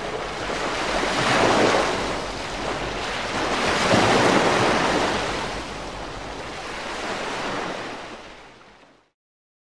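Sea surf breaking and washing onto a pebble beach, swelling twice early on, then fading out to silence about nine seconds in.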